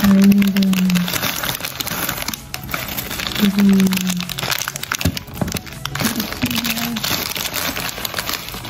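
Packaging from a mini building-brick set crinkling and rustling as it is handled and unpacked, in irregular bursts of crackly noise.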